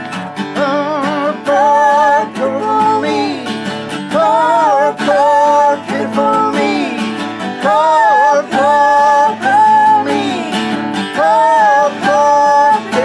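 Acoustic guitar strumming, with a wordless hummed melody carried over it in phrases of about a second each, the notes wavering with vibrato.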